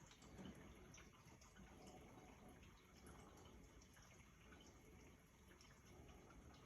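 Faint trickling and dripping of water inside a GE dishwasher as it fills at the start of its cycle.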